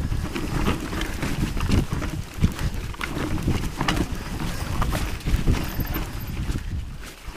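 Mountain bike riding down a rough, rocky and rooty dirt trail: a steady rumble of tyres on the ground with irregular knocks and rattles from the bike as it hits roots and rocks.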